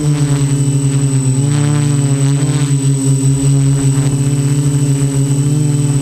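Quadcopter's electric motors and propellers in flight: a loud, steady buzz whose pitch wavers slightly as the motors adjust, with a thin, steady high whine above it.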